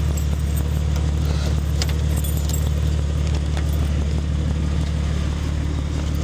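Car engine idling through a straight-piped exhaust: a steady low drone, with a few light metallic clicks over it.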